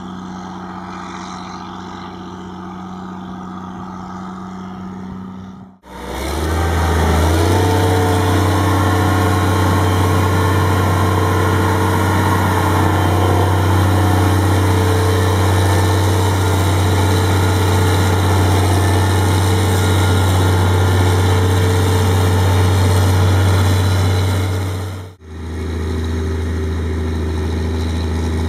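Diesel engines of heavy harvest machinery running steadily, in three stretches split by abrupt cuts. After the first cut, about six seconds in, a louder engine rises in pitch as it revs up and then holds a loud, steady low drone.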